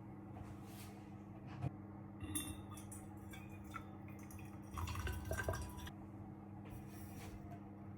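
Scattered light clinks and taps of glass or dishware being handled, with a louder cluster of knocks about five seconds in, over a steady low hum.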